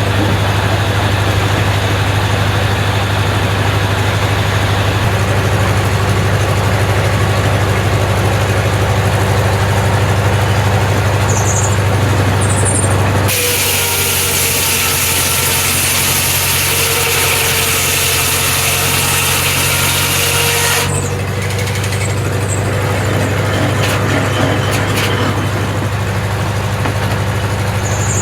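Engine-driven Corley circular sawmill running steadily, with a low engine hum. About halfway through, the blade cuts through a log for some eight seconds, a loud hiss over the engine.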